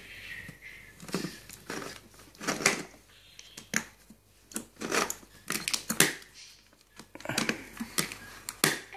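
Irregular clicks and knocks of hands pressing and tapping the buttons of a plastic electronic baby toy.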